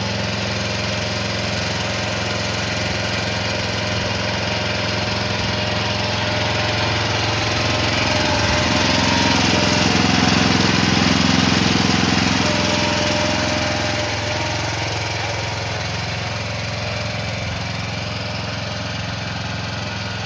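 Small engine of an AGT DM12-C mini excavator running steadily, swelling louder partway through and easing back down after about fourteen seconds.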